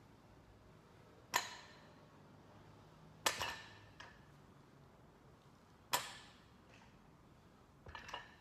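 A dumbbell touching down on the gym floor at the bottom of each single-arm deadlift rep: three sharp knocks, each with a short ring, about two to three seconds apart, then a quicker cluster of smaller knocks near the end.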